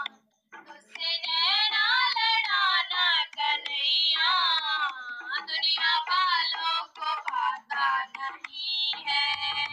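A high-pitched solo voice sings a devotional bhajan melody in long, gliding phrases. It starts after a brief pause, and a low hum comes in near the end.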